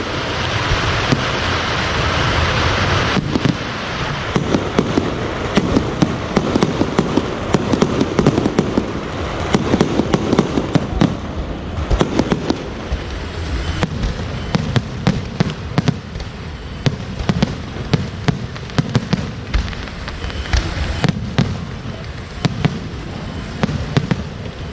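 Fireworks going off in rapid succession: a dense, irregular crackle of many sharp bangs. A steady hiss runs under it for about the first three seconds.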